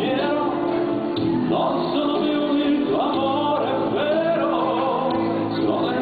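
Music with a singing voice holding wavering, gliding notes over an accompaniment.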